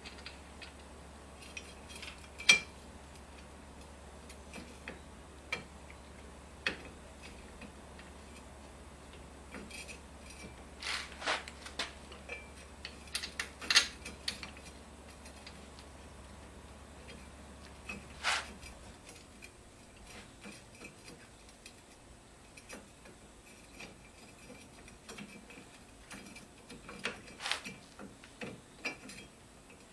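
Scattered metal clicks and clinks of hand tools and hardware as a front brake caliper is refitted, bunching into a quick run of clicks near the middle. A low steady hum stops about two-thirds of the way through.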